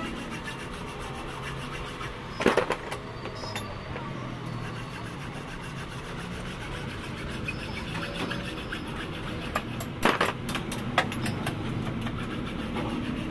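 Hacksaw cutting into the steel body of a car shock absorber held in a vise, with steady rasping strokes and a few sharp metallic knocks about two and a half seconds in and again around ten to eleven seconds. The cut opens up the leaking gas shock for repair.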